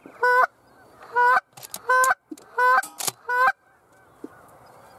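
Geese honking: a run of about six loud, short honks, each breaking upward in pitch at the end, over the first three and a half seconds, then they stop.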